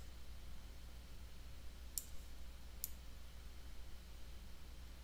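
Two sharp computer mouse clicks a little under a second apart, about two seconds in, over a faint steady low hum.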